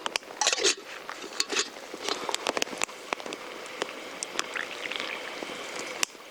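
Wood campfire crackling: irregular sharp pops and clicks over a soft hiss.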